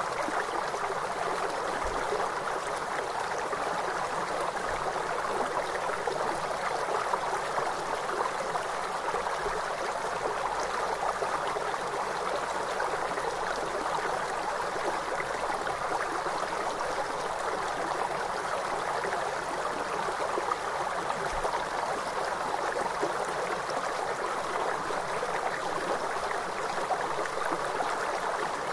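Flowing river water: a steady rushing noise with no breaks or changes.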